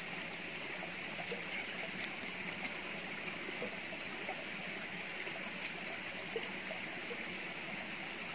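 Shallow stream running steadily over rock, with a few faint clicks of a knife scraping a carcass.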